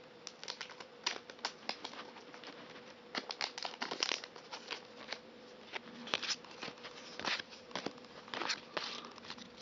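A foil trading-card booster pack being handled and opened: irregular crinkling and rustling, with a faint steady hum underneath.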